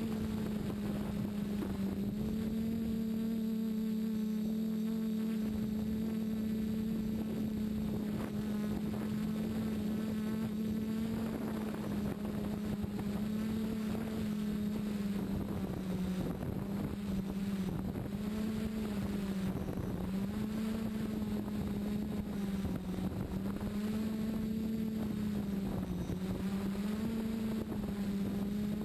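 Electric motors and propellers of a DJI multirotor heard from a camera on board, a steady buzzing drone whose pitch dips slightly every few seconds as the flight controller trims motor speed. The craft is hovering over home and letting down under an automatic GPS failsafe, with a little wind on the microphone.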